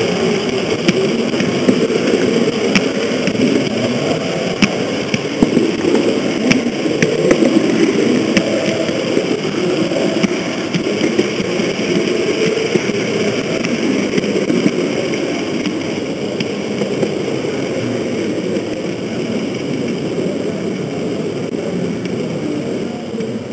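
Running noise of an H0 model locomotive's electric motor and gearing, heard close up from an onboard camera as the train rolls along the track: a steady rumble with scattered clicks, gradually getting a little quieter in the second half.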